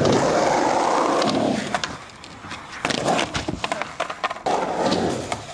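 Skateboard wheels rolling on a skatepark ramp and tarmac, broken by several sharp clacks as the board and rider hit the ground in a slam.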